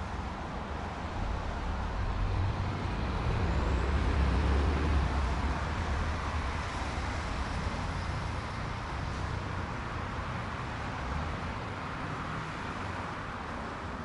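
Street traffic ambience: a steady wash of road noise, with a vehicle's low engine rumble swelling to its loudest about five seconds in as it passes close, then easing back.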